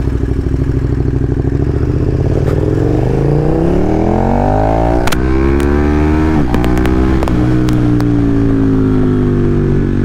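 KTM naked motorcycle engine pulling away from low revs, its pitch climbing as it accelerates. It dips briefly at gear changes in the middle, then settles into a steady run that slowly eases off.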